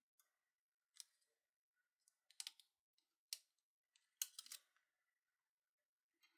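A few faint, short clicks and rustles from hands handling a small electric-motor armature, its copper winding wire and a plastic slot guide. The clicks come about a second in, around two and a half and three seconds in, and in a quick cluster just past four seconds, with near silence between them.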